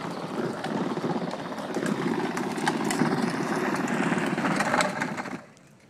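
Kids' ride-on electric toy Ford truck driving on asphalt: a steady rough rumble of its hard plastic wheels and motor, which cuts off about five and a half seconds in.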